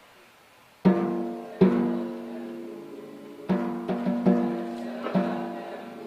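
Grand piano playing loud, accented chords that each ring out and fade, starting about a second in: two struck chords, then a quicker run of chords from about three and a half seconds on.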